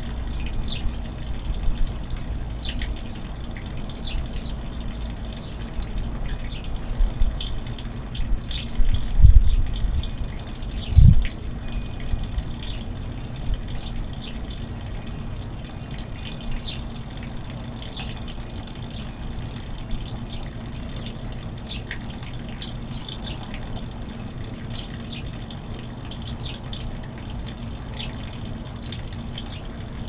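Finches chirping in short, high calls scattered throughout, over a steady rushing noise like running water. Two low thumps about nine and eleven seconds in.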